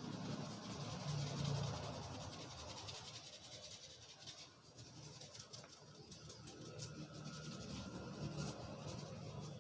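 Hands rubbing and scratching through hair and over the scalp during a head massage, a continuous fine scratchy rustle.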